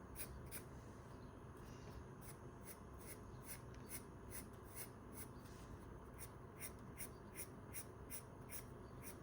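Pencil shading strokes scratching on sketchbook paper, faint and quick, about three strokes a second.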